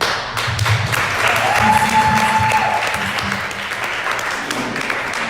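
Audience clapping after a closing prayer, with one voice giving a long cheer over the applause about a second in.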